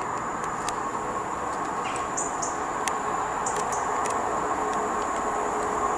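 Approaching GWR Class 150 diesel multiple unit: a steady hum of its diesel engines and wheels on the rails, slowly growing louder as it nears. Birds chirp briefly several times over it.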